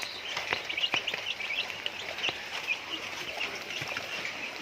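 Chickens giving many short, high chirps, with a few sharp clicks, over a steady hiss of rain.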